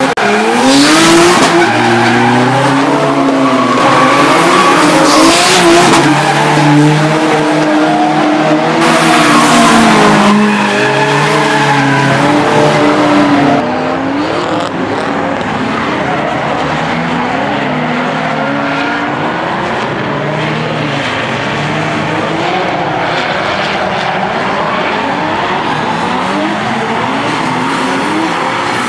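Drift cars' engines revving up and down under hard throttle while their tyres squeal and hiss sliding sideways through the corners. About halfway through the sound suddenly drops in level and loses its hiss.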